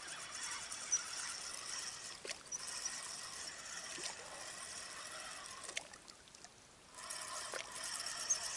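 River water trickling, a steady hiss with a few faint clicks; it drops away for about a second around six seconds in, then returns.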